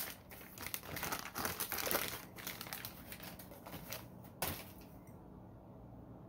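Crinkling and rustling of wrapping being pulled off a glass by hand, with a single sharp knock a little over four seconds in.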